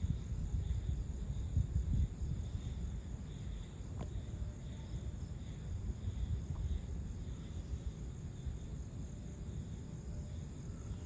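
Insects chirping steadily in two high bands, the lower one pulsing, over a constant low rumble. A single sharp click sounds about four seconds in.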